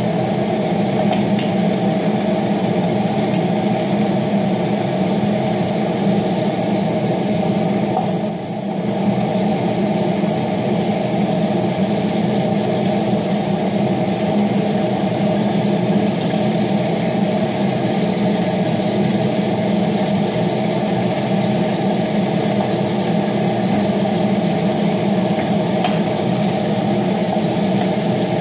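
Kitchen range hood exhaust fan running with a steady hum and rush of air, with a few faint clinks of a fork and wooden spoon in the cooking pot.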